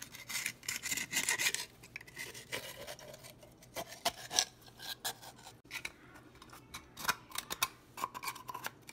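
A thin knife scraping and rasping against the inside of a blanched geoduck's shell, with short clicks of blade on shell, as it cuts the muscles along the shell so the body comes away.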